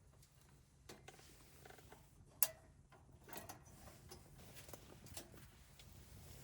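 Scattered light clicks and taps at irregular intervals, with one sharp click about two and a half seconds in.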